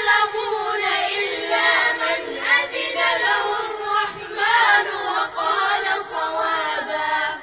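A child's high voice reciting the Quran in a melodic, drawn-out chant, with wavering ornamented held notes.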